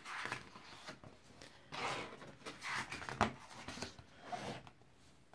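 Pages of a picture book being opened and turned by hand: several soft paper rustles and swishes with a light tap a little after three seconds in.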